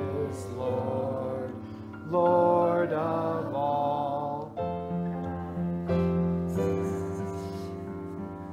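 Youth choir singing a worship song to piano accompaniment.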